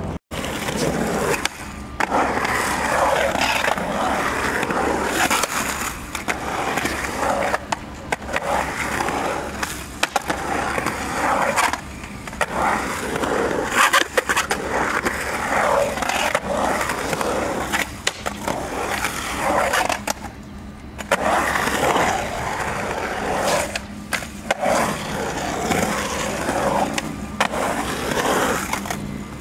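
Skateboard wheels rolling over concrete ramps and bowls, with sharp clacks of the board striking the concrete now and then.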